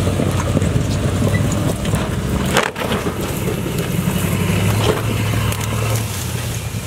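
Armored Chevrolet Suburban on flat run-flat tires driving off-road through brush. Its engine runs steadily under the crackle and snap of branches being crushed, with a brief break about two and a half seconds in.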